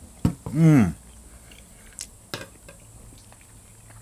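A man eating barbecue ribs dipped in blackcurrant sauce: a short appreciative 'mmm' hum that rises and falls in pitch, then quiet chewing with a few faint clicks.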